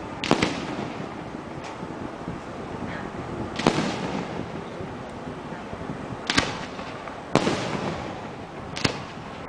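Aerial firework shells bursting, five loud bangs spaced one to three seconds apart, each trailing off in an echo, with a couple of fainter pops between them.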